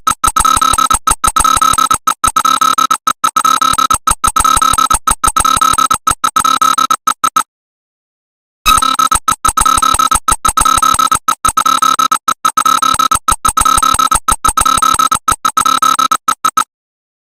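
Electronic emergency alert alarm: a loud, harsh buzzing tone chopped by rapid, uneven breaks. It sounds in two runs of about seven to eight seconds, each cut off into about a second of dead silence.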